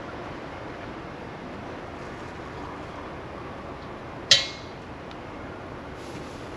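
One sharp metallic clink about four seconds in, ringing briefly: a metal tool or bike part knocked or set down during reassembly. Otherwise a steady low hiss.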